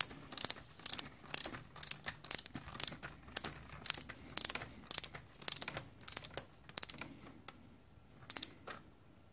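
Ratchet wrench clicking in quick runs as it is swung back and forth, running a cylinder-head nut down threads that are tight. The clicking stops about seven seconds in, with a few last clicks shortly after.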